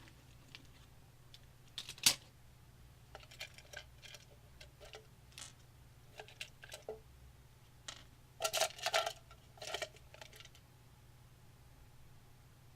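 Small metal PC fan screws and parts being handled, giving scattered light clicks and clinks. There is one sharp click about two seconds in and a quick run of clicks around eight to ten seconds, over a faint low hum.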